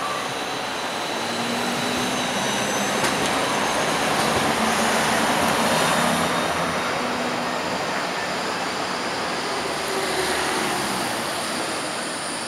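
City trams running on street track, with cars passing: a continuous rumble of wheels and motors with a faint steady hum, swelling to its loudest about halfway through as a tram and a car go by close, then easing as a second tram passes.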